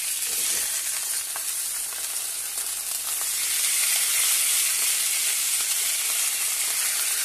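Pieces of little tunny frying in oil in a pan, with a steady high sizzle that grows louder about three seconds in. A wooden spatula is moving the pieces about.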